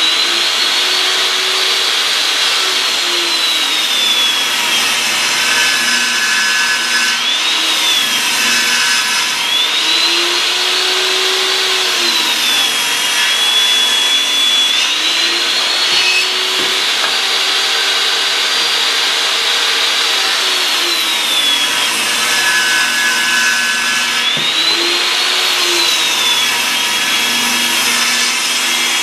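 Table saw running and ripping wooden boards into 2-inch strips. Its high whine dips several times as the blade bites into the wood under load and climbs back up between passes.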